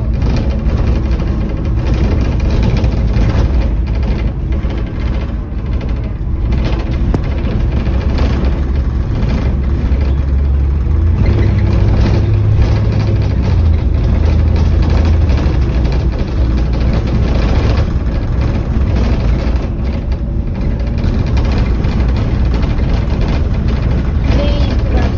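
Bus engine running steadily with low drone and road noise; the low engine note grows louder for a few seconds about eleven seconds in, then eases back.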